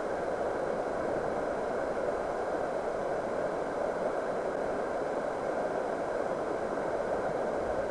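Steady, muffled water noise picked up by a submerged camera, an even dull hiss with nothing standing out.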